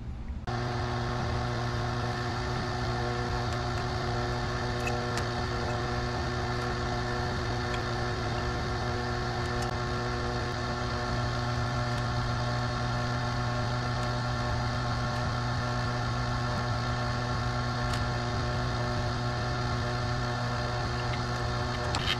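Electric motor of a benchtop wire-stripping machine running steadily with a low hum, starting about half a second in.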